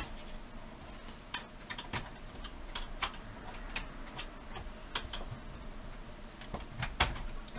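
Plastic snap clips of a video recorder's front cabinet being eased off their catches by hand, giving a string of sharp, irregular clicks and snaps, one every second or so, the loudest about seven seconds in.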